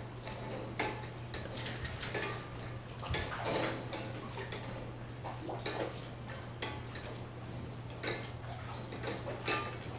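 Dairy barn background: a steady low hum with faint, irregular clicks and clinks scattered through it.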